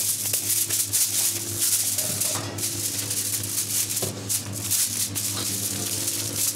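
Aluminium foil crinkling and rustling in many small irregular crackles as gloved hands press and shape a minced-meat patty on it, over a steady low hum.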